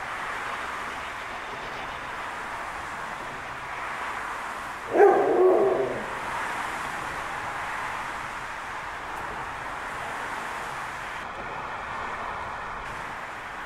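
Steady running noise of a steam-hauled passenger train behind the A1 Pacific 60163 Tornado as it draws away around a curve. About five seconds in, a loud short pitched call cuts in twice in quick succession for about a second, the loudest sound.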